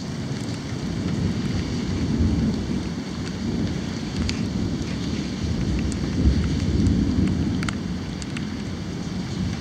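Thunder rumbling, swelling twice, over steady rain, with a few sharp ticks scattered through.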